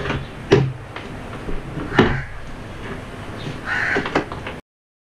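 Sharp knocks and clunks, about a second and a half apart, once the scooter has come to a stop. A short harsh sound comes near the end, and then the sound cuts off suddenly.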